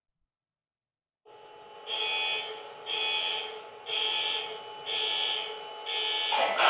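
Model SD70ACE diesel locomotive's onboard sound system starting up: a steady diesel engine sound with a ringing tone that repeats about once a second, five times. A louder, fuller engine sound comes in near the end.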